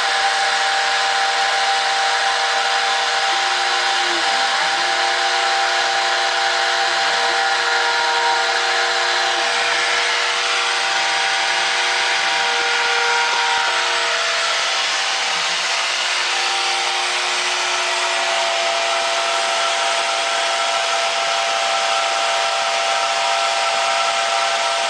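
Homebuilt three-axis CNC mill running a cutting job: a steady cutting noise under several whining tones that stop, restart and shift in pitch every second or two as the machine moves through the pattern.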